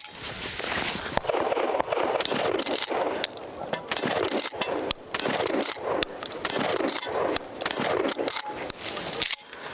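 Ported 12-gauge Remington 870 Wingmaster pump shotgun firing reduced-recoil 9-pellet buckshot in a string of shots about a second apart, the pump racked between them.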